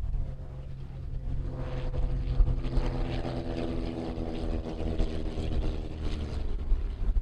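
Britten-Norman BN-2 Islander's twin propeller engines droning as it passes close by on the runway, swelling from about a second and a half in and fading near the end, over a low wind rumble.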